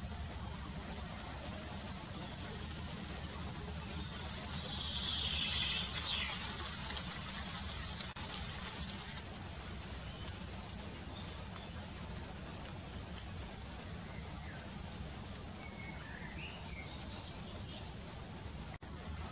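Outdoor ambience: a steady hiss and low rumble, with a few faint bird chirps about five seconds in and again near the end. The high part of the hiss cuts off about nine seconds in.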